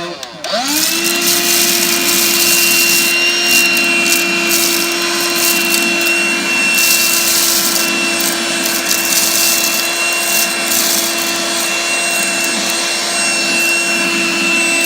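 G-Tech HV01 9.6-volt cordless handheld vacuum cleaner switched back on just after the start, its motor spinning up to a steady whine. Scattered crackles run through it as small debris, crumbled pasta, is sucked up the crevice tool.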